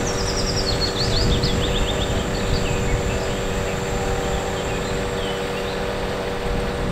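Truck-mounted aerial work platform running: a steady low rumble with a constant hum. Small birds chirp in the first few seconds.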